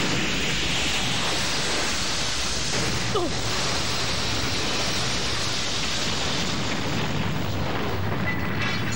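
Animated explosion sound effect: a long, steady rush of noise with a deep rumble under it, and a brief falling whistle about three seconds in.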